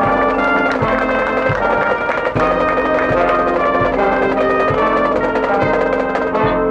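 Marching band brass playing loud sustained chords, with low drum strokes about every three-quarters of a second underneath.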